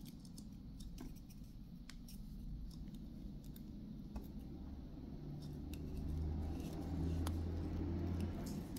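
Light scattered clicks and small metallic taps as wires and a terminal are handled on a steam iron's exposed soleplate, over a low hum that grows a little louder in the second half.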